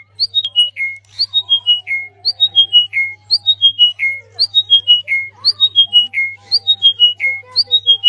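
A high, whistle-like phrase of about six notes stepping downward, repeated evenly about once a second, over a faint low steady hum.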